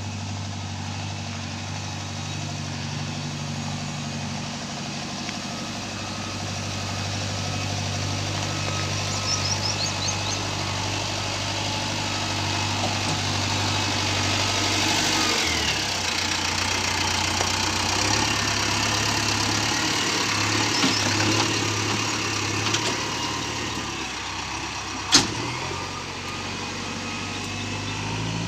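Diesel engine of a JCB 3DX backhoe loader running steadily while the machine works, its note shifting and dipping about halfway through. A single sharp metallic knock comes near the end.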